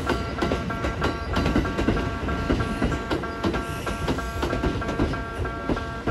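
A train running with a rapid, repetitive clatter of wheels on the rails over a low rumble. Background guitar music plays under it.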